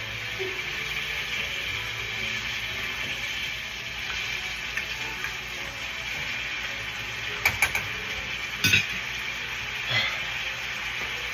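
Food sizzling in a frying pan with a steady hiss, as it is stirred; a few sharp clinks of a utensil against the pan come about seven to ten seconds in.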